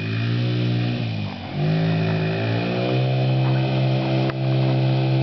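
Kymco 50 youth ATV's small engine running under throttle as the quad is ridden. Its pitch dips about a second in, then climbs and holds steady.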